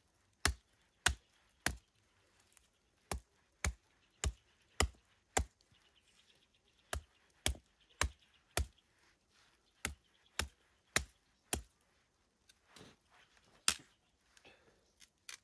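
A knife chopping into a wet branch held upright, splitting it for firewood: sharp strikes about two a second, in runs of three to five with short pauses between, and a last single strike near the end.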